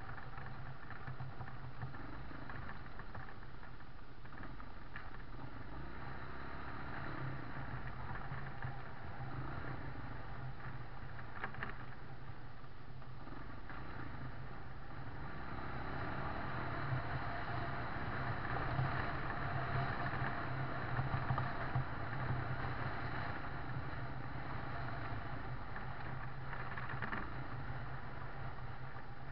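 A vehicle driving along a rough gravel track: steady engine hum with tyre and road noise, growing louder for a few seconds past the middle.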